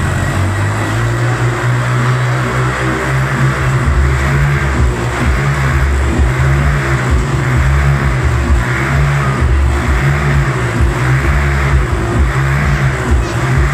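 Motorcycle engines running hard as the bikes circle inside a steel mesh globe of death, the engine note rising and falling over and over.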